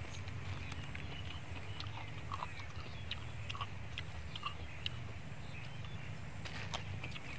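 Soft chewing and small clicks from eating snails and leaf sprigs by hand, over a steady low rumble, with faint short high chirps here and there.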